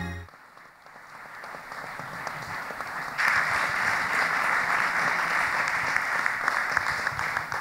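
Audience applauding, building up over the first few seconds, growing louder about three seconds in, and tailing off near the end.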